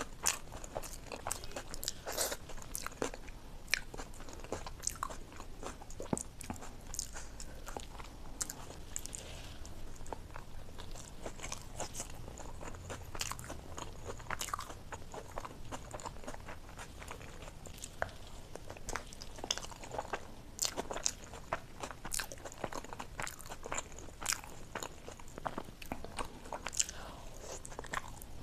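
A person chewing momos (meat dumplings in chili sauce), with many short, irregular wet clicks and smacks of the mouth.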